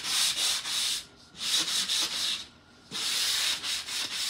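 Sanding block rubbed in quick back-and-forth strokes over a chalk-painted wooden tray. It goes in three bursts of about a second each, with short pauses between.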